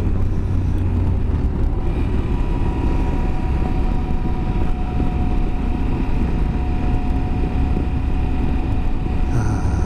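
Wind rushing over a helmet-mounted microphone over the steady running of a Yamaha Super Ténéré's parallel-twin engine at road speed. A faint steady whine joins in about two seconds in.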